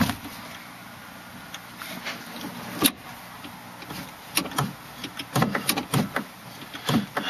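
Scattered clicks and soft knocks of someone moving around and into a parked car, with one sharp click about three seconds in.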